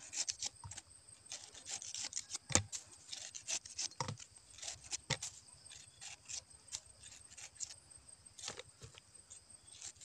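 Long knife slicing and paring a pineapple held in the hand: a run of irregular crisp cuts and short scrapes, the sharpest about two and a half seconds in.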